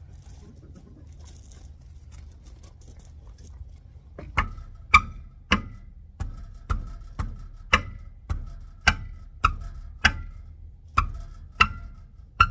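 Hammer blows on metal, about two a second, each with a short metallic ring, starting about four seconds in: knocking a stuck inner dual rear wheel of a Ford F-350 loose from behind.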